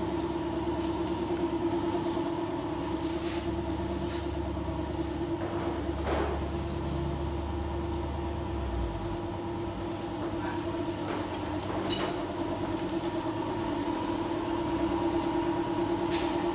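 A steady mechanical hum of running machinery, with a low rumble underneath that stops about halfway through and a few faint clicks.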